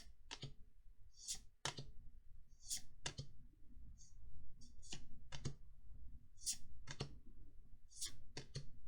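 Magic: The Gathering trading cards being flicked through one at a time, each card giving a short crisp snap, irregularly about one or two a second.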